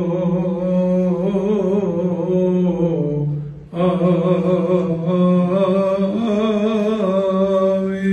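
A man chanting the deacon's responses of the Coptic Orthodox liturgy, in long held notes with wavering ornaments. There is a short break just after three seconds in, and then the chant carries on.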